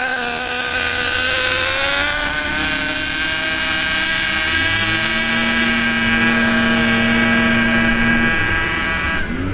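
Exceed Madfire .21 nitro RC truck's two-stroke glow engine running at part throttle: a steady buzzing whine with many overtones, its pitch climbing a little about two seconds in and dropping near the end. The engine is still being broken in and, as the owner thinks, is running rich.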